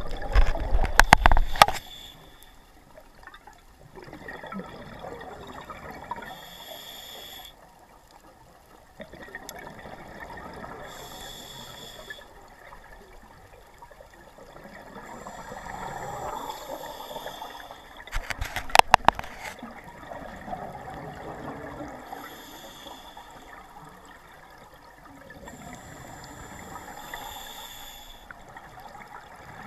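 Scuba diver breathing through a regulator, heard underwater through a camera housing: a breath with bubbling and hiss roughly every five seconds. Sharp clattering knocks come near the start and again a bit past halfway.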